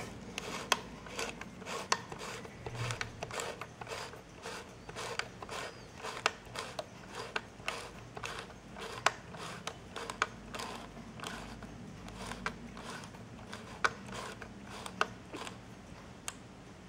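Irregular sharp mechanical clicks, several a second with a few louder ones, and light rubbing as a 1952 Belfoca roll-film camera body and its controls are handled.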